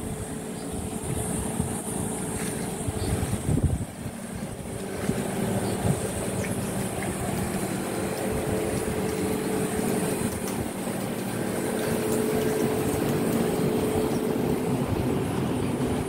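A steady mechanical hum with a few held low tones under a noisy rumble, shifting slightly a few seconds in.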